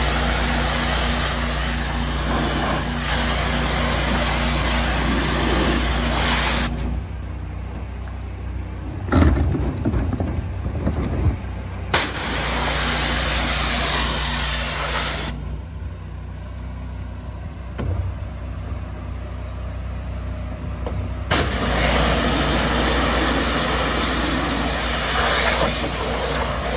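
Trailer-mounted hot-water pressure washer running steadily, with the spray wand hissing as it blasts into trash bins. The spray cuts off about a quarter of the way in, returns for a few seconds in the middle, stops again, and comes back for the last part, while the machine keeps running underneath. A couple of sharp knocks come during the first pause.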